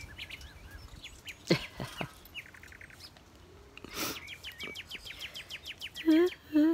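Pet bird chirping and chattering: scattered high chirps, then a quick run of about ten chirps a second past the middle, with a short harsh burst about four seconds in. A brief voice sounds near the end and is the loudest thing.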